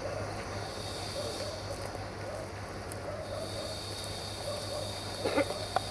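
Electroputere 060-DA (LDE2100) diesel-electric locomotive with a Sulzer engine running while shunting slowly: a steady engine drone with a high whistling whine, the whistle that earns the class its nickname "Fluieroasa". A brief louder sound and a sharp click come near the end.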